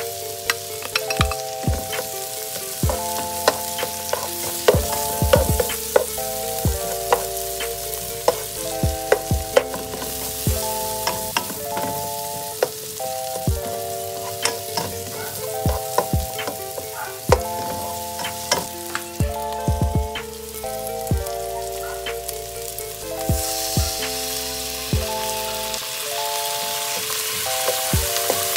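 Sliced white onion and garlic sizzling in oil in a nonstick frying pan, stirred with a spatula that clicks and scrapes against the pan; the sizzle grows louder near the end. A simple tune of held notes plays underneath.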